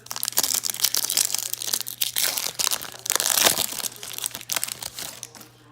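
Foil wrapper of a Topps baseball card pack crinkling as it is torn open and handled, a dense run of crackles that dies away just before the end.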